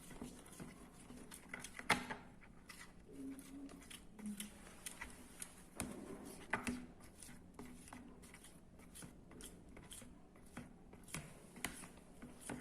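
Stirring utensil scraping and clicking against a bowl as glue and food colouring are mixed for slime, in an irregular run of small ticks and scrapes.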